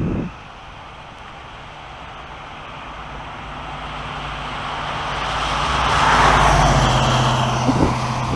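A motor vehicle approaches and passes. Its tyre and engine noise swells to a peak about six seconds in, and its low hum drops slightly in pitch as it goes by. A couple of short knocks come near the start and the end.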